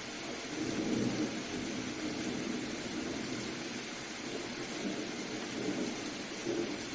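Steady hiss of soft rain, with a low rumble of distant thunder that swells about half a second in and rolls on unevenly to the end.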